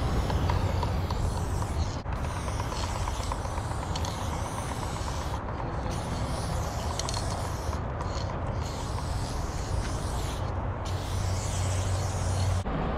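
Aerosol spray can hissing in long strokes as paint is sprayed on, the hiss breaking off briefly several times between strokes, over a steady low rumble.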